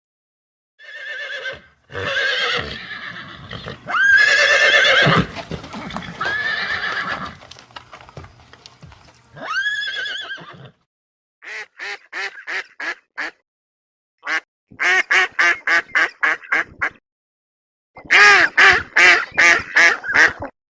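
Horses neighing and whinnying: several separate calls, the later ones breaking into rapid quavering runs of short pulses.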